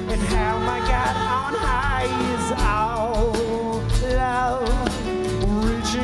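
Live rock band playing an instrumental passage: a wavering, bending lead line over bass, keyboards and a steady drum beat.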